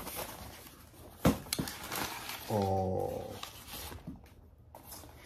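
A cardboard parcel being opened by hand: a sharp snap about a second in, then rustling and scraping of cardboard and packing. Midway there is a short low hum or grunt from a man's voice.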